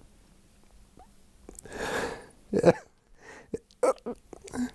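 A man crying: a long sniffling in-breath about two seconds in, followed by several short sobs and catches of breath.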